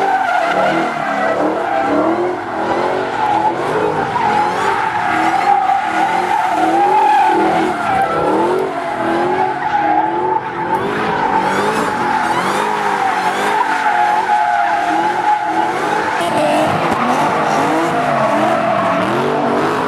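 Dodge V8 muscle cars doing donuts: continuous tyre squeal from the spinning rear tyres, with the engine revving up and down about once a second as the driver works the throttle.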